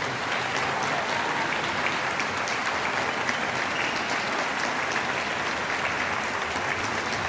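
Steady applause, many hands clapping together.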